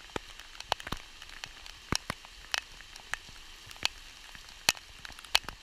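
Heavy storm rain: a steady hiss with irregular sharp taps of large drops striking close by.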